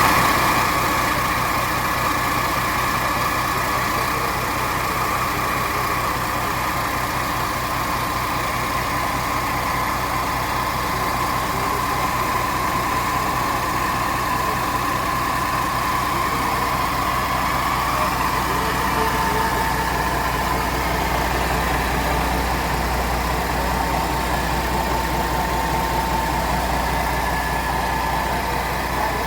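Weichai WP12 inline-six diesel engine idling steadily, with a steady whine over the low rumble.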